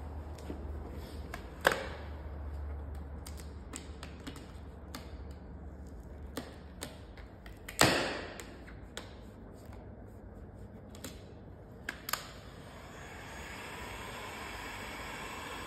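Scattered clicks and crackles of vinyl wrap film being handled and tucked around a car door edge, with two sharper snaps, one about two seconds in and one about halfway. Near the end a heat gun switches on and blows with a steady hiss.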